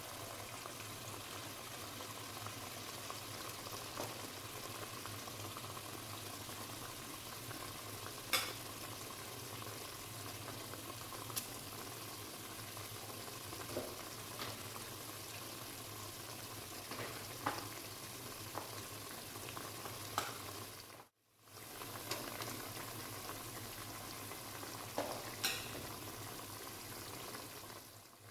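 Food sizzling as it fries in oil in a cooking pot, with occasional sharp clicks of a stirring spoon against the pot. The sizzle cuts out briefly about three-quarters of the way through, then carries on.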